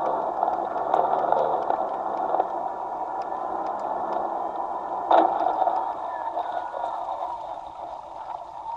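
Radio-controlled floatplane landing on water: a steady rush of motor and water noise that slowly fades, broken by one sudden splash-like hit about five seconds in as it touches down.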